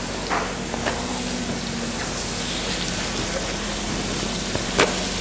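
Stuffed, string-tied beef roll sizzling steadily in oil on a cast-iron grill pan over a gas flame, with a few light clicks, the sharpest near the end.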